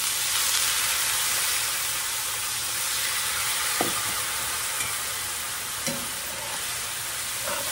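Water just poured into a hot skillet of frying onions and browned pan drippings, sizzling with a steady hiss that slowly eases as the pan is deglazed for an onion gravy. A couple of light spatula clicks against the pan in the second half.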